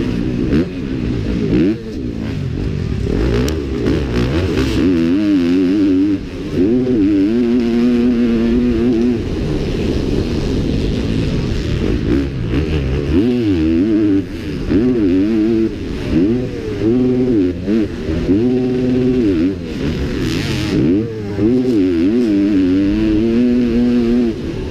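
Motocross bike engine racing flat out, revving up hard and dropping off again and again as the rider shifts and shuts the throttle for corners and jumps.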